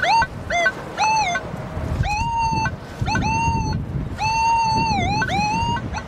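Minelab CTX 3030 metal detector giving a rapid string of warbling beeps, many sliding up into a held tone, as the coil sweeps over ground full of iron. Wind rumbles on the microphone underneath.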